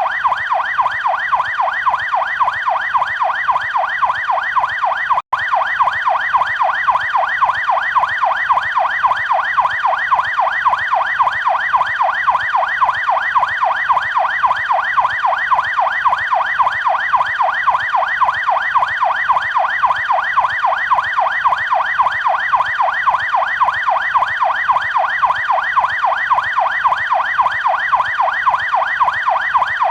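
Canadian police car siren on yelp: a fast, evenly repeating sweep in pitch, several cycles a second. It cuts out for an instant about five seconds in.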